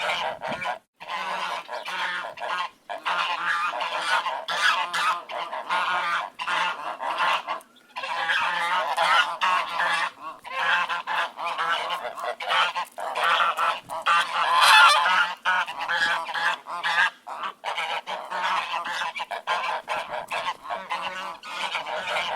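A flock of ducks quacking continuously, many calls overlapping, with a few brief breaks.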